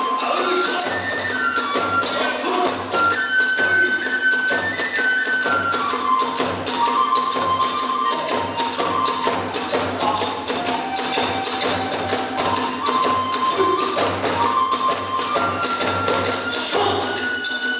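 Kagura hayashi music: a bamboo flute playing a stepping melody over fast, continuous taiko drumming and hand cymbals.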